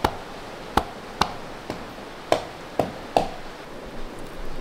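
Jackfruit seeds being cracked by striking them with a coconut held in the hand: about seven sharp knocks in the first three seconds, one of them fainter, then they stop.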